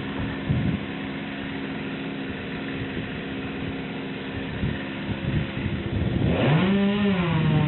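Chainsaw engine running steadily, then revving about six seconds in, its pitch rising, holding briefly and dropping back.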